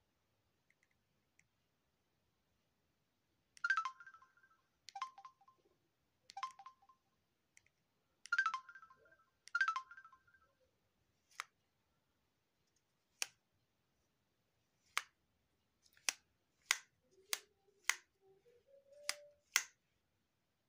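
Samsung SGH-Z400 mobile phone giving five short electronic key beeps as its navigation keys are pressed. These are followed by about nine sharp button clicks, coming faster near the end.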